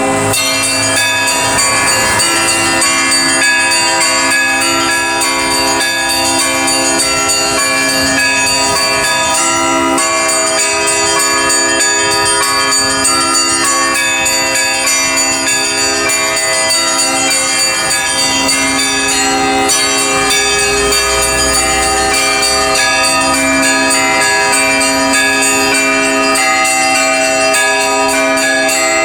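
Orthodox church bells ringing together in a continuous peal: many bells of different pitches sound at once, with the lower bells struck again and again under a steady jangle of smaller bells.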